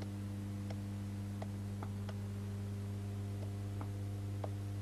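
A steady low electrical hum in the soundtrack, with faint, irregular small ticks of a hand tool scratching and tapping at a stone as it is engraved.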